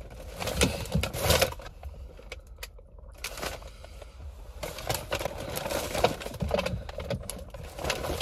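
Rustling and light clattering of shopping bags and small items being handled and rummaged through, in short bursts about a second in and again from about five seconds on, over a low steady rumble.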